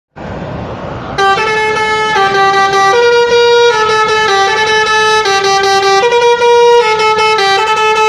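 A bus's Basuri 'telolet' multi-tone horn plays a tune, several horn notes sounding together and stepping up and down in pitch. It starts about a second in, after a low rumble of bus engines.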